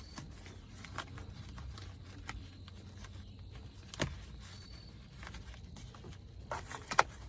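Hands working wiring and the Ford Bronco's plastic interior trim: scattered light clicks and rustling, with a sharper click about four seconds in and the loudest clicks near the end.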